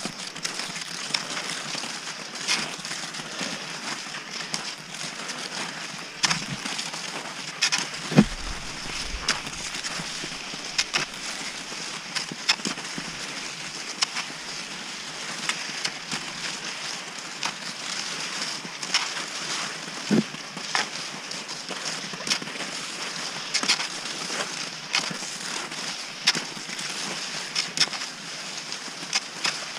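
Cross-country skis sliding and scraping over snow, with ski poles planting in an uneven stride rhythm of sharp clicks and crunches about once or twice a second over a steady hiss. A couple of heavier thumps stand out, one about 8 seconds in and one about 20 seconds in.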